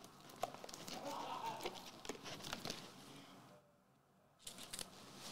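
Faint rustling and light clicks of trading cards and foil booster-pack wrappers being handled. The sound drops almost to nothing for about a second partway through.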